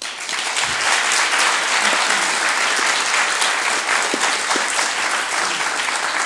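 Audience of schoolchildren applauding, breaking out all at once and keeping on steadily and loudly.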